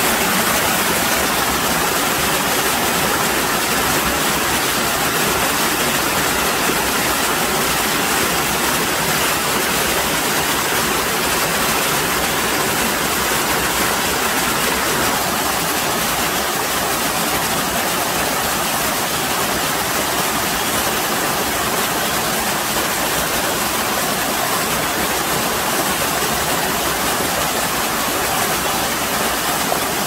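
Mountain stream water rushing and splashing over boulders in small cascades: a steady, even rush of running water.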